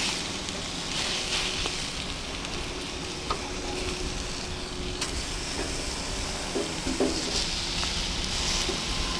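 Meat sizzling on a Coleman camp griddle-style grill, a steady frying hiss that swells and eases, with a few light clicks.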